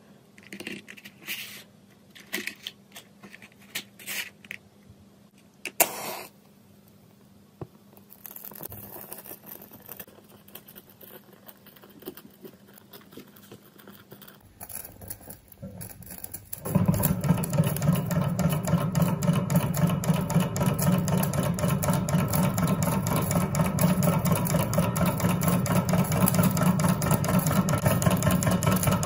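A matchbox is handled with small clicks, and a match is struck about six seconds in, followed by a soft hiss as the spirit burner flame takes. About two-thirds of the way through, a model Stirling engine starts running. Its flywheel and linkage make a loud, fast, steady mechanical clatter.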